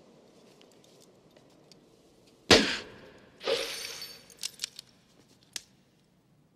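A sudden loud bang, then about a second later a second crash with a metallic ring that dies away, followed by a few sharp clicks.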